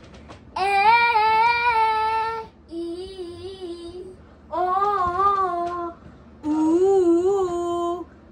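Girls and a woman singing in turn: four short held phrases with wavering pitch, each about one to two seconds long, with brief pauses between them. The second phrase is quieter than the others.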